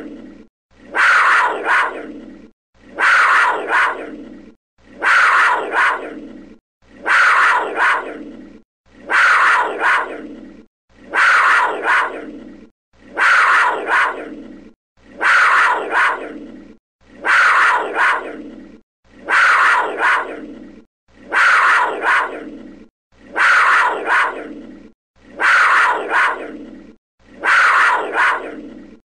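A big cat's call, presented as a panther, looped over and over. The same short call comes about every two seconds: each starts loud, slides down in pitch and fades, then cuts off sharply into a moment of silence before the next.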